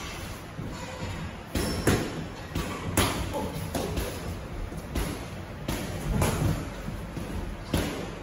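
Boxing gloves landing punches during sparring: irregular sharp thuds, sometimes two in quick succession, over the hum of a large gym hall.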